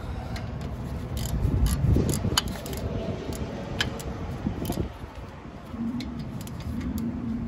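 Socket ratchet clicking in short spells as brake caliper bolts are run down and tightened, over a steady low rumble.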